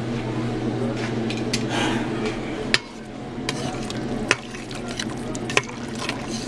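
A spoon stirring flour into the pot roast's cooking juices in a pot, with three sharp knocks of the spoon against the pot about a second and a half apart, over a steady low hum.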